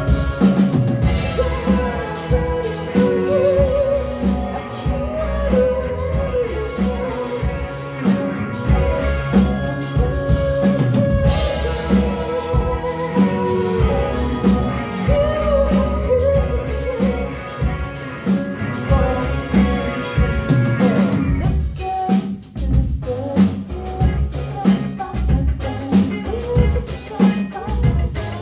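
Live band playing a song: a woman singing over electric guitar, keyboards and a drum kit keeping a steady beat. The singing stops about three-quarters of the way through, the sound thins for a moment, and the drums and instruments carry on.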